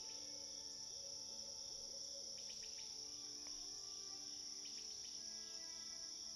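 Faint, steady chirring of crickets, with a few brief higher chirps, over soft held musical tones.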